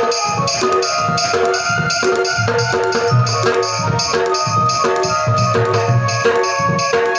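Instrumental stage music with a steady drum beat and jingling percussion under a held melody line; no singing.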